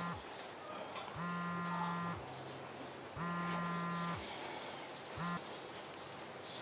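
Mobile phone ringing: a repeating electronic ring tone, each ring about a second long and coming about every two seconds. The last ring is cut short about five seconds in as the call is answered.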